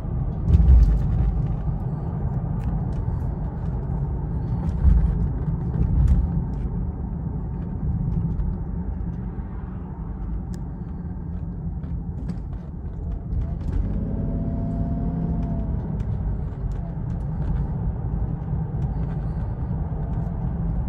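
Inside the cabin of a BMW 750iL on the move: the V12 engine and tyres make a steady low rumble, with a few heavier thumps in the first six seconds and a short humming tone about fourteen seconds in.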